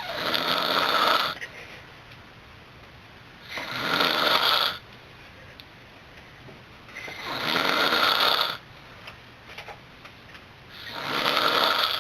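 Snoring: four long snores in a regular rhythm, about one every three and a half seconds, each swelling up over about a second before cutting off.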